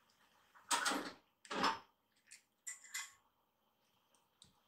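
Kittens' claws scrabbling at a wooden door and frame: a few short scratching scrapes and knocks, the two loudest about a second in and half a second apart, then fainter ones.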